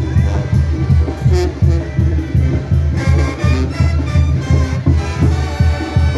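Mexican banda (brass band) playing: a pumping tuba-and-drum bass with brass carrying a melody, which grows louder about three seconds in.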